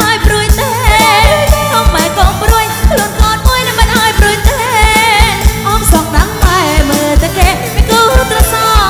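Live Khmer romvong dance song played by an amplified band: a woman sings with wavering vibrato over electric bass and a drum kit keeping a steady kick-drum beat.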